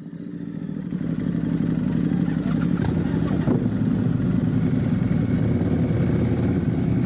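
A vehicle engine running steadily, fading in at the start, with a few light clicks near the middle.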